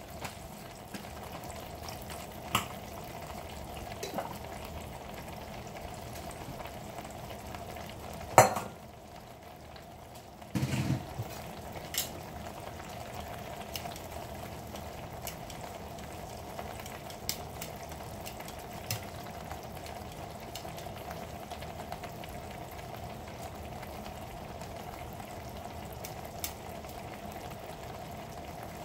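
Meatballs in Alfredo sauce simmering and sizzling in a frying pan with a little olive oil: a steady bubbling hiss with scattered small pops. A sharp click about eight seconds in, and a low bump a couple of seconds later.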